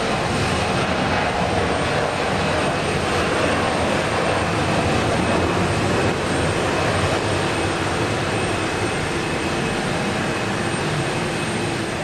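Embraer 170 regional jet's twin GE CF34-8E turbofans at take-off power through the take-off run and lift-off: a steady, loud rushing engine noise.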